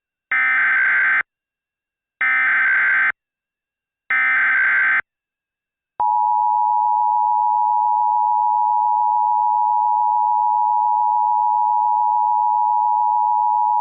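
Emergency Alert System tones: three bursts of SAME header data, each a harsh digital warble about a second long and spaced about a second apart. Then the EAS two-tone attention signal holds steady for about eight seconds.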